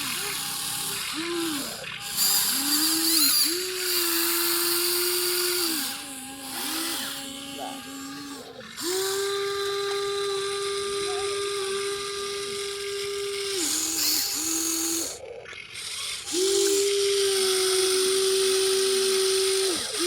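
Small electric gear motors of a radio-controlled construction toy whining in runs of a few seconds, each starting with a quick rise in pitch, with short pauses between.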